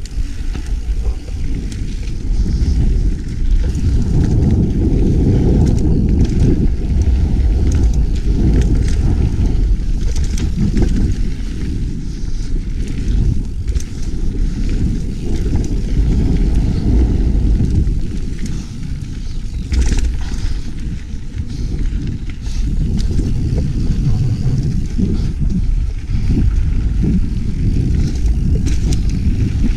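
Mountain bike rolling fast down dirt singletrack, heard as a loud, steady rumble of wind buffeting the ride-mounted camera's microphone. Tyre noise and scattered rattles and knocks from the bike run through it.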